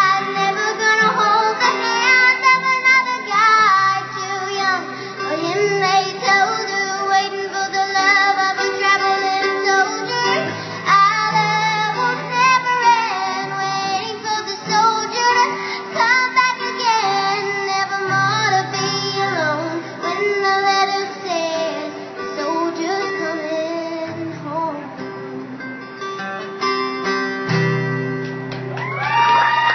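A young girl singing a song live with acoustic guitar accompaniment, amplified through small PA speakers.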